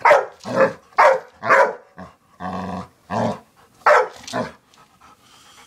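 A dog barking repeatedly, about eight loud barks at roughly two a second, one near the middle drawn out longer; it is barking at a piggy bank it is scared of.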